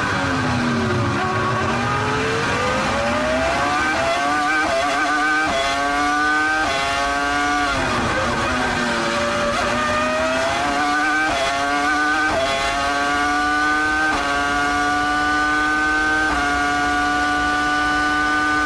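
Onboard sound of a Williams Formula 1 car's engine at racing speed: the pitch falls as it slows at the start, then climbs through a run of quick upshifts. It dips again about eight seconds in and rises through several more upshifts to hold a steady high note near the end.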